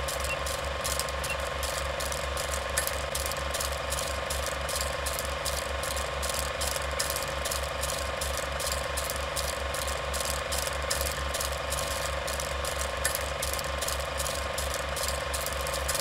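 Film projector running: a steady mechanical clatter of about four clicks a second over a constant hum and a low pulsing throb.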